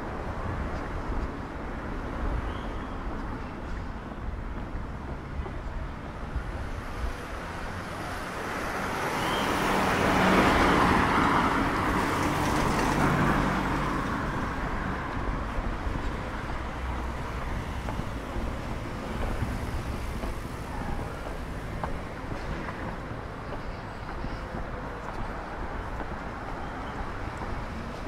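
Street traffic noise. One vehicle passes close by, its sound rising to a peak about ten seconds in and fading away over the next few seconds.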